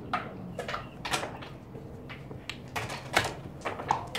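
Sharp clicks and knocks of backgammon play: checkers handled and set down on the board, about five separate clacks, the loudest about three seconds in.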